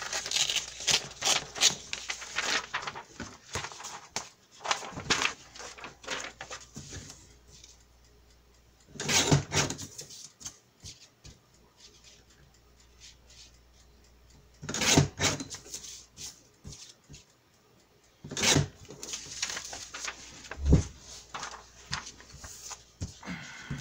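Sheets of coloring-book paper rustling as they are handled and shuffled. There is dense rustling for the first several seconds, then separate bursts with quiet gaps between them, and a soft thump near the end.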